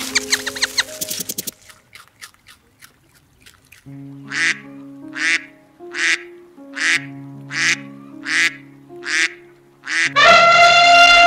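A duck quacking eight times at an even pace, just under a second apart, over background music. About ten seconds in, a loud, long elephant trumpet call starts and slides down in pitch near the end.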